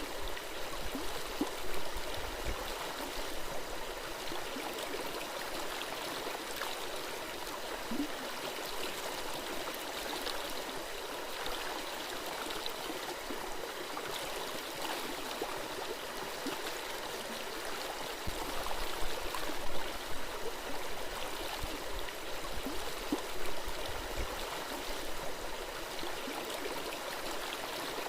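A small forest stream flowing over rocks, babbling and gurgling steadily, with a few louder splashes about two-thirds of the way through.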